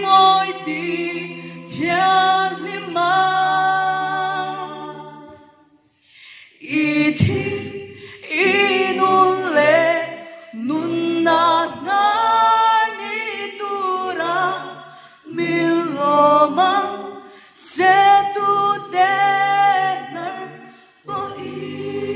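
Mixed a cappella group of four women and three men singing in harmony into microphones, in phrases, with a short pause for breath about six seconds in.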